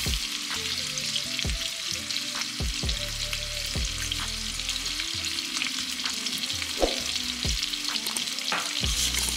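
Lamb chops pan-searing in garlic butter and oil: a steady hissing, crackling sizzle. A low thumping beat runs underneath.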